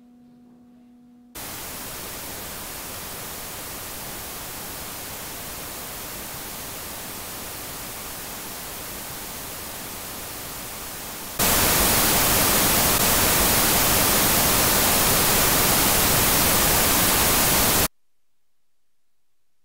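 Static hiss of even white noise, starting suddenly about a second in, jumping much louder about eleven seconds in, then cutting off abruptly a couple of seconds before the end. A faint low hum is heard at the very start.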